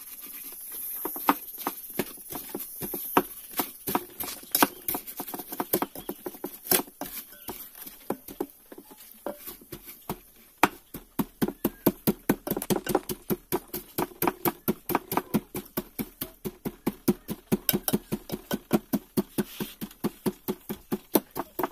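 Wooden pestle pounding small green fruits in a stainless steel pot, each stroke a dull knock. The strokes are uneven at first and settle about halfway into a steady rhythm of about three to four a second.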